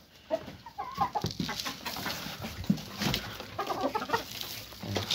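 Domestic hens clucking in short calls while feeding, with scattered light taps and rustles.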